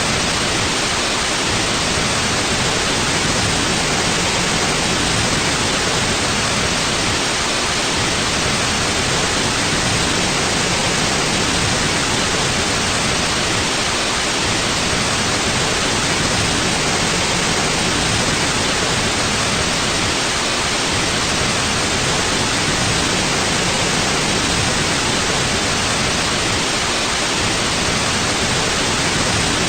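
Continuous white noise: a steady, even hiss that does not change.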